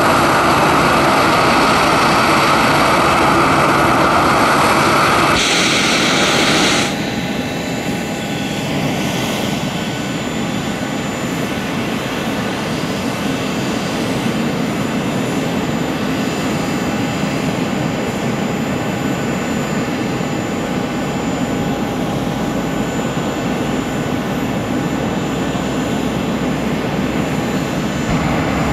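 Boeing 737-800's CFM56 turbofan jet engines running. The sound is loud at first and drops sharply about seven seconds in, then settles to a steadier, quieter jet noise with a thin high whine.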